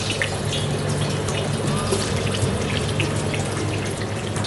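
Paneer cubes, still wet from boiling in turmeric and salt water, sizzling and crackling as they deep-fry in hot oil in a steel kadhai. The sizzle is steady, with many small spattering crackles, over a low hum.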